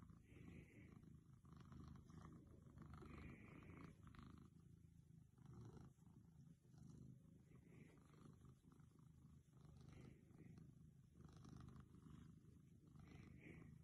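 Old domestic cat purring faintly and steadily while it is stroked under the chin.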